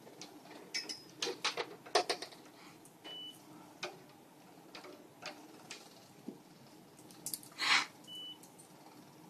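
Two short high beeps about five seconds apart from veterinary monitoring equipment, over light clicks and knocks of the breathing tube and instruments being handled, with a short hiss just before the second beep.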